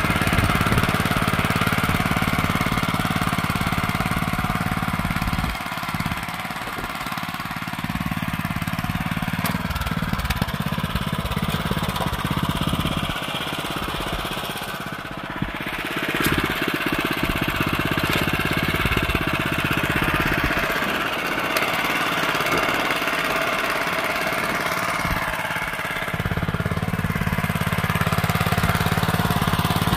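Honda FJ500 DLX tiller's single-cylinder petrol engine running under load as its spring tines work through soil. The low engine note weakens in several stretches and comes back.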